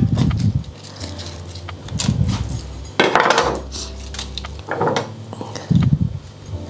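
Several separate knocks and clinks of a kitchen knife and a foil-lined stainless steel roasting tray as rosemary sprigs are pushed into a leg of lamb, with rustling of the aluminium foil lining.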